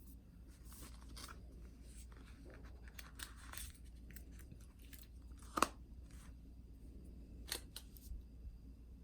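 Apple Watch band box and packaging being opened and handled: quiet crinkling and rustling with scattered clicks, the sharpest about five and a half seconds in and another about two seconds later.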